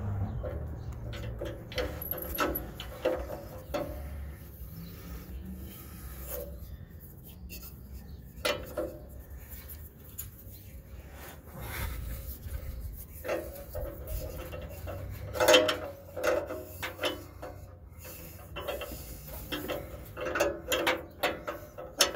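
Ratchet and socket working on the upstream (bank 1, sensor 1) oxygen sensor: scattered clicks and metal knocks, busiest about two-thirds of the way through and near the end. The sensor is seized and is not breaking loose with the ratchet.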